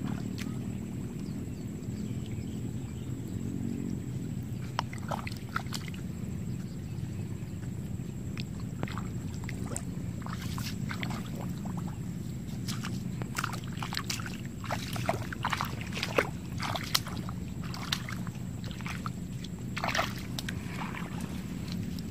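Shallow muddy ditch water sloshing and splashing in short, irregular bursts, busiest in the second half, over a steady low rumble.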